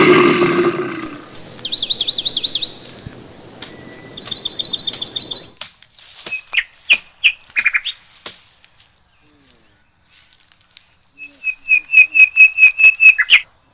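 Bird calls: two quick trills of rapid high chirps, then scattered short notes, and a loud run of repeated, quickening notes near the end, over a faint steady high-pitched insect drone. A rough rushing noise underneath stops about five seconds in.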